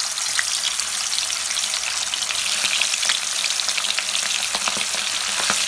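Fish pieces sizzling in hot oil in a kadhai, a steady dense crackle of fine pops and spatters.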